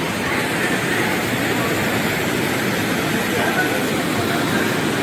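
Waterfall on a mountain river, its water rushing steadily, with faint distant voices.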